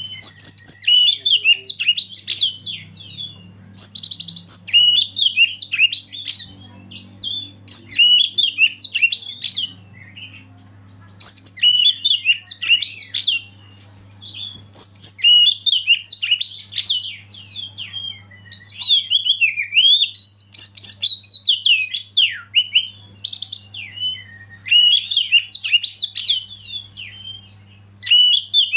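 Oriental magpie-robin singing loud, varied whistled phrases with quick up-and-down sweeps, burst after burst with short pauses, over a faint steady low hum.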